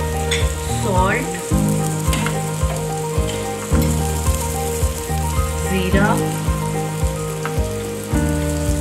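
Chopped onions and mashed potato frying in oil in a nonstick pan, a steady sizzle, with background music with a bass line and a regular beat playing over it.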